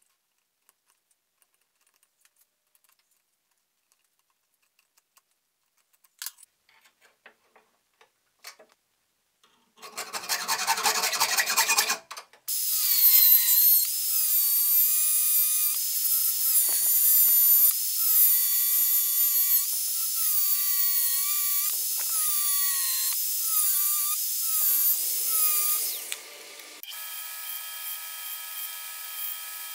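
An angle grinder with a cut-off disc cuts 3 mm steel plate, its motor whine wavering and dipping as the disc bites. It comes after a few light clicks and a short rough burst. Near the end it gives way to the quieter, steady hum of a band saw running.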